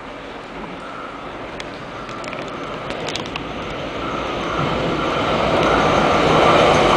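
Electric commuter train approaching the platform, its running noise growing steadily louder as it nears, with a faint steady whine and a few light clicks about two to three seconds in.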